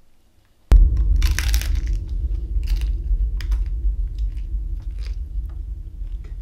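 A hard corn taco shell crunching loudly as it is bitten into, about a second in, followed by a few single crunches while it is chewed. A steady low rumble starts suddenly with the bite and runs underneath.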